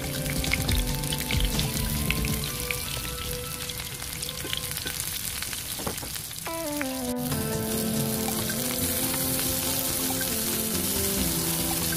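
Eggplant pieces sizzling and crackling as they fry in hot oil in a pan. A gentle background melody plays over the sizzle, more prominent in the second half.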